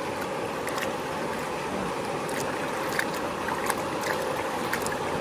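Shallow river water running steadily over stones, with small sharp splashes and drips scattered through it as a fish is moved about by hand under the surface.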